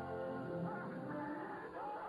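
Dramatic background music: held chords that give way about half a second in to a looser passage with gliding tones.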